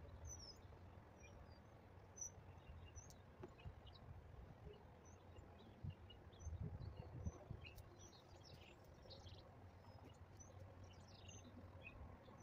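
Near silence with faint bird chirps scattered throughout over a low background rumble, and a few soft low thumps a little past the middle.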